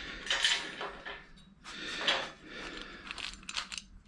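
Metal brackets and hardware clinking and scraping against aluminium extrusion as they are handled and fitted, in three short bursts with sharp clicks.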